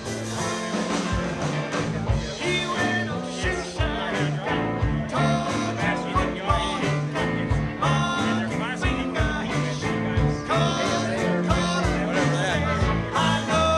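Band music with guitar and a steady beat, in a country or rock-and-roll style.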